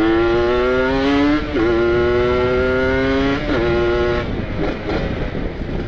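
Kawasaki Ninja 150 RR's ported two-stroke single-cylinder engine accelerating through the gears. The pitch climbs, drops at an upshift about a second and a half in, climbs again, drops at a second upshift about three and a half seconds in, then eases off near the end. The freshly ported engine is being run in, held to moderate revs.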